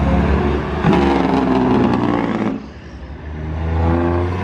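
Big-rig semi-truck diesel engines running as the trucks pass one after another. The sound dips a little past halfway and builds again as the next truck comes up.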